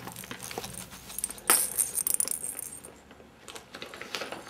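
Small cat toys jingling and rattling as they are handled, a quick flurry of light clicks and jingles about a second and a half in, then a few scattered ones near the end.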